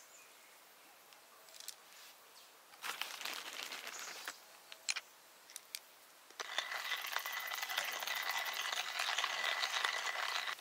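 Stainless-steel hand-cranked coffee grinder being put together, with a short rattling scrape about three seconds in and a couple of sharp clicks, then from about six seconds in the crank is turned and coffee beans are ground in a steady, dense grating that stops abruptly.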